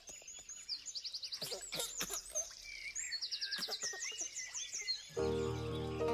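Several birds chirping and trilling in quick runs of high repeated notes. About five seconds in, instrumental music with sustained tones comes in.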